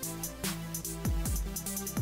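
Electronic background music with a steady beat of deep kick drums and bright hi-hats over held bass notes.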